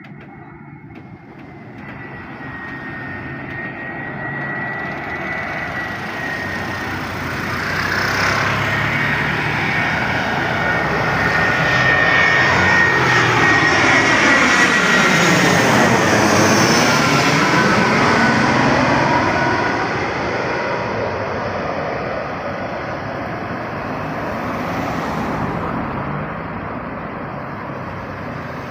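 Airbus A320-214 jet airliner on landing approach passing close by: the engines' roar and whine build to a peak about halfway through, the whine drops in pitch as the aircraft passes, then the sound eases off.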